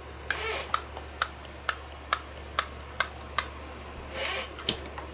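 Brand-new washing-machine agitation transmission clicking sharply about twice a second as its shaft is worked back and forth by hand, with two brief rubbing swishes. This is the normal clicking of a healthy gearbox's play, not a fault.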